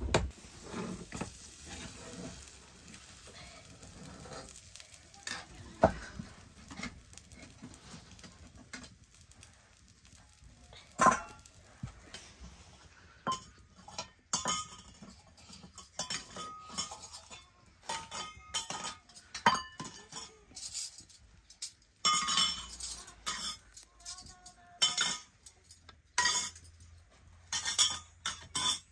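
A metal spatula stirring and scraping food in a steel pan at the start, then small steel bowls and spoons clinking against each other and the pan as they are set out, many separate sharp clinks with a short ring.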